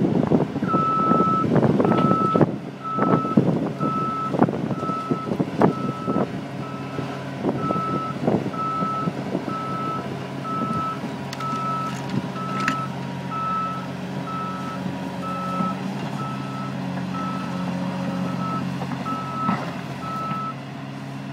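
Caterpillar 330D tracked excavator travelling on a steep slope: its travel alarm beeps steadily about once a second over the running diesel engine. Sharp clanks and knocks from the tracks and undercarriage are loudest in the first few seconds, then thin out, and the beeping stops just before the end.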